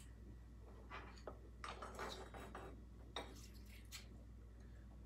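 Faint, scattered clinks and light scrapes of hands and a small flashlight handling the Husqvarna 246 chainsaw's carburetor intake area, over a low steady hum.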